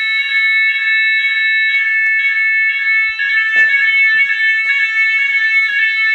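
Fire alarm evacuation sounders of a Chubb type 1 alarm system sounding continuously: a steady, high-pitched tone with several pitches layered together.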